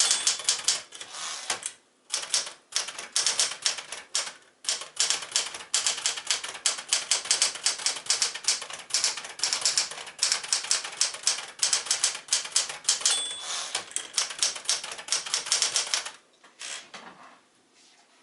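Smith-Corona Galaxie Twelve manual portable typewriter being typed on at speed, a rapid run of keystroke clacks with a couple of brief pauses and a short ring about thirteen seconds in. The typing stops about sixteen seconds in, leaving a few scattered clicks.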